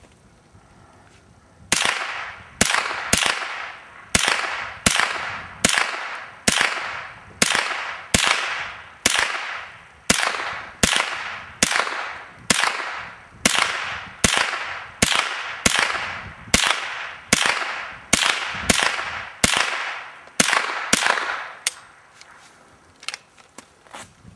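Firearm fired about two dozen times at a steady pace, roughly one shot a second or a little faster, each shot followed by a short echoing tail. The shooting stops a couple of seconds before the end, leaving a few faint clicks.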